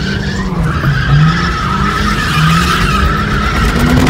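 Tyres of an A31 Nissan Cefiro squealing in a sustained drift from about half a second in, easing near the end, over the engine's note rising and falling with the throttle, heard from inside the cabin.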